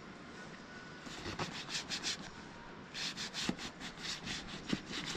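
Hand rubbing shoe cream into a leather jacket: repeated short rubbing strokes on the leather that begin about a second in and speed up to about four a second after three seconds.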